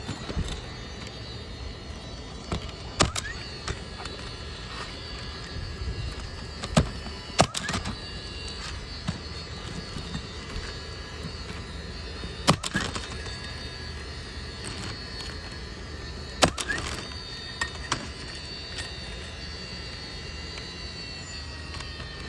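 Sharp single knocks of nails being driven through replacement asphalt shingles, about six strikes spread several seconds apart, with two close together about seven seconds in.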